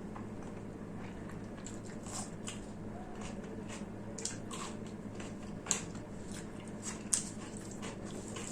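Close-miked wet chewing and mouth smacking of a person eating curry and rice, with irregular short clicks and squelches, two sharper ones near the end, over a steady low hum.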